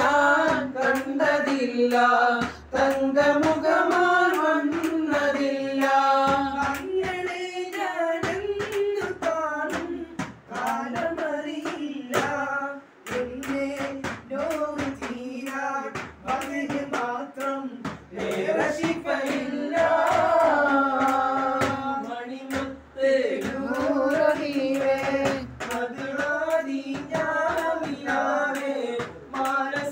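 A man singing a Malayalam devotional song (a madh song) without instruments, the melody held in long, bending notes. Steady hand clapping keeps the beat under the voice.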